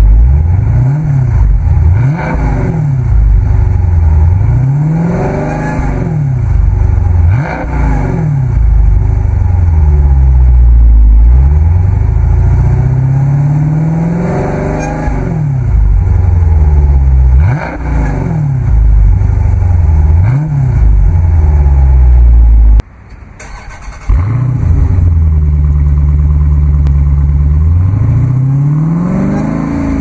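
2016 Dodge Challenger's 6.4-litre 392 Hemi V8, heard at the exhaust tailpipe, revved in place about ten times. Each blip rises in pitch and falls back toward idle. The sound briefly cuts out about three quarters of the way through.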